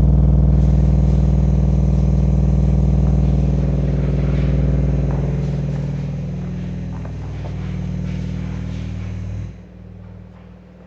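Subwoofer in a thin fiberboard box playing a 20 Hz test tone from a tone generator at high power: a steady deep drone with a buzz of overtones over it. It eases off after the middle and drops sharply near the end.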